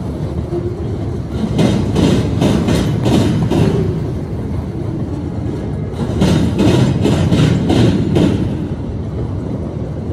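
Loaded rail-train flatcars rolling by, a steady rumble of steel wheels on rail. Two runs of rapid clacking, one in the first few seconds and another past the middle, as the cars' wheelsets pound over a railroad diamond crossing.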